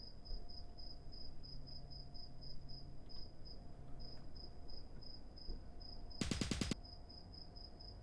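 A cricket chirping in a steady, rapid high-pitched pulse, broken about six seconds in by a short, rapid burst of gunfire.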